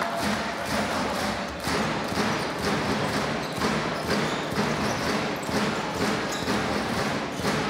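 Basketball dribbled on a hardwood court, a thud every second or so, over the steady noise of an arena crowd.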